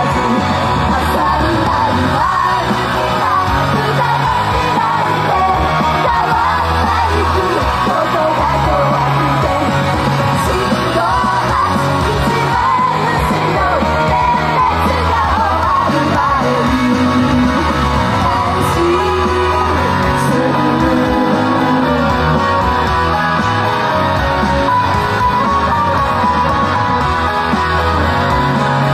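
Japanese idol group singing live over loud, continuous band music with a steady beat.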